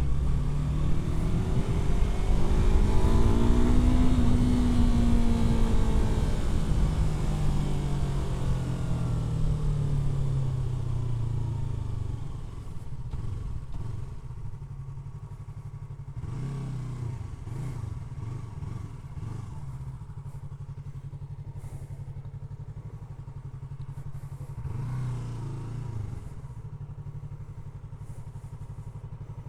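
Yamaha R3's parallel-twin engine: revs climb over the first few seconds, then fall away as the bike slows. From about halfway it settles to a steady idle, with two short blips of throttle.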